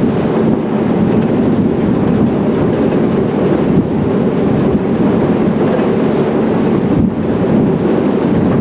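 Paddle steamer Waverley under way: a steady low rumble of its paddle wheels and steam engine, with wind buffeting the microphone.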